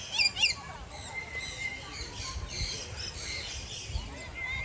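Birds calling: two sharp rising squawks right at the start, then many short chirps and squawks through the rest.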